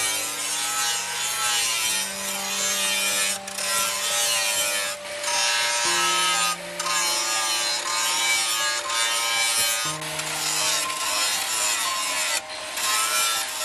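Angle grinder with a flap disc grinding a leaf-spring steel knife blade: a continuous grinding hiss over a motor whine whose pitch wavers as the disc is pressed on and eased off, with a few brief dips in the sound.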